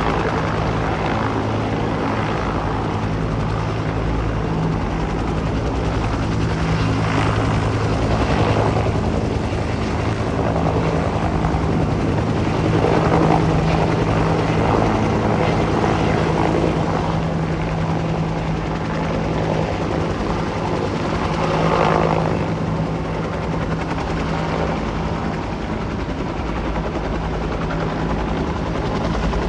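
Bell Huey-type utility helicopter running steadily while it flies with a rooftop air-conditioning unit slung on a long line beneath it: a continuous rotor and turbine noise with a low steady hum, swelling slightly twice.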